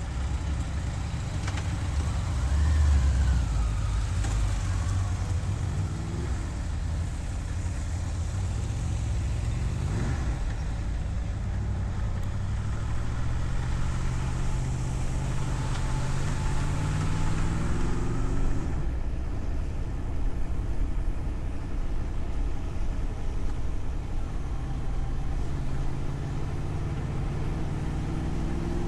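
Car driving: a steady low engine and road rumble, with the engine note rising as it accelerates, once in the middle and again near the end.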